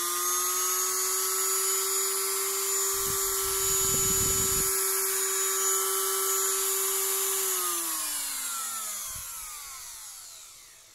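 Krisbow IRDGS1 mini rotary grinder running free with no load at speed setting 4, a steady high whine. About seven and a half seconds in it is switched off and winds down, its pitch falling away until it stops.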